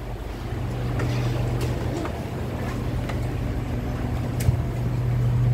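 Steady low hum inside a Kawasaki–Nippon Sharyo C751B MRT train car standing at a platform with its doors open. A few faint clicks are scattered through it, with a sharper click about four and a half seconds in.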